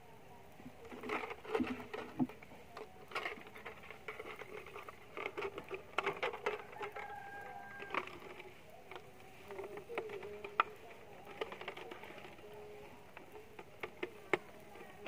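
Plastic collecting bottle being handled and pushed onto the coir-rope-bound end of a tapped coconut flower stalk to catch toddy sap: irregular clicks, taps and crinkles of plastic and rope.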